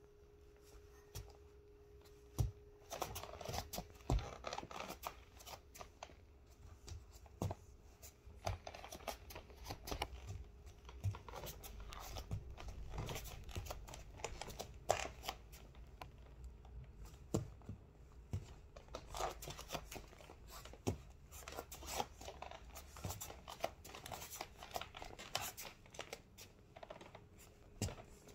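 Soft, irregular taps and rustles: a baby's small steps shuffling on a foam play mat, with clothing rustling.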